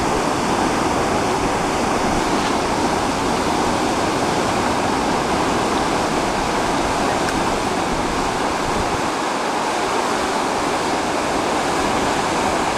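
Steady rushing of a river in flood, an even wash of water noise that keeps up without a break.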